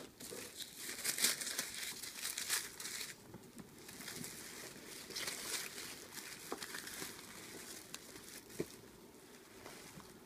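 Tissue paper and a cloth dust bag rustling and crinkling as a handbag is unwrapped from its box, heaviest in the first three seconds and again about halfway, then dying down. A single sharp click comes near the end.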